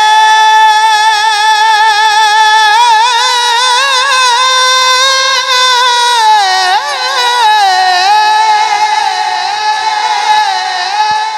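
A single voice singing a long, drawn-out note in an unaccompanied Punjabi naat, wavering in ornaments and stepping down in pitch about six seconds in.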